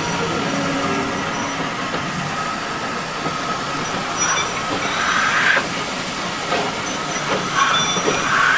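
Steam saddle-tank locomotive and a vintage North Eastern Railway carriage rolling slowly over yard trackwork during shunting. The steel wheels run with a steady rumble and squeal in two brief spells, about halfway through and again near the end.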